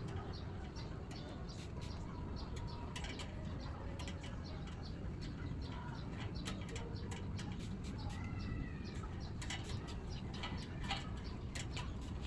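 Hand pump spray bottle being squeezed over and over, misting a dog's coat in many short spritzes.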